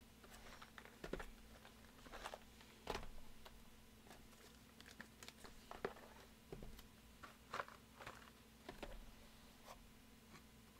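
Faint, irregular taps, knocks and rustles of shrink-wrapped cardboard trading-card boxes being picked up, handled and set down on a table.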